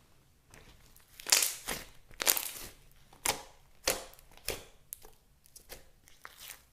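Slime being mixed and squeezed by hand: a run of irregular crackling pops, loudest a little over a second in.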